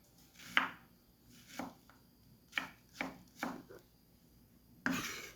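Kitchen knife chopping an onion on a cutting board: about six separate, unevenly spaced cuts, then a longer scraping sound near the end.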